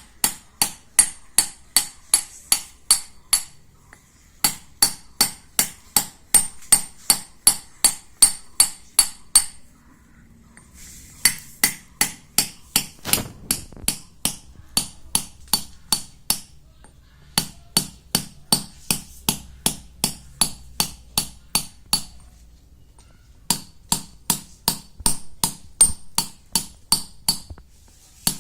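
Hammer tapping a chisel into a stone grinding slab (shil pata), pecking small pits to re-roughen its grinding surface. The strikes come about three a second in runs broken by short pauses, each with a sharp metallic ring.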